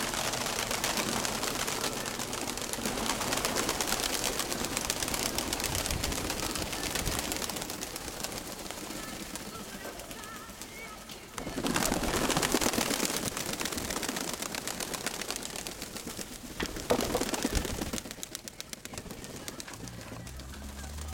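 Domestic pigeons cooing over a steady rushing noise that grows louder for a couple of seconds about halfway through.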